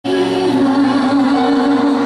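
A song: voices singing long held notes over musical accompaniment.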